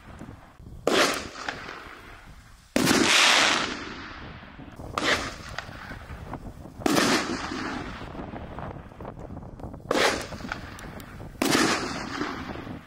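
Preloaded 1.75-inch 60-gram canister firework shells firing: six sharp reports from launches and breaks, each trailing off in a long echo. The report about three seconds in is the loudest and rings on for about two seconds.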